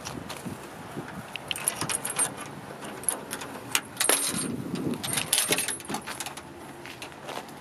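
Metal clinking and rattling of a pickup truck's steel tailgate hardware (support chain, latch and hinges) as it is handled, a run of sharp irregular clicks.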